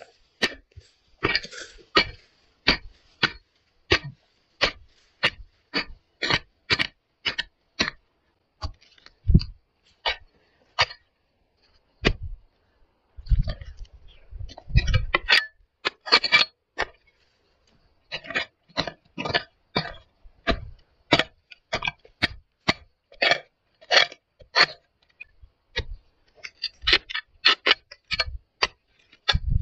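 A hoe chopping into hard, dry, cracked soil in quick repeated strokes, about two to three a second, with short breaks near the middle and a few duller thuds. Digging out bamboo whip shoots.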